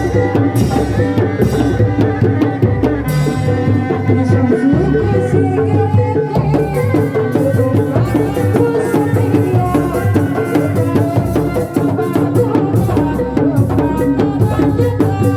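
Sundanese kuda lumping reak ensemble playing: hand drums and percussion keep a busy, steady rhythm under a wavering, sliding melody line.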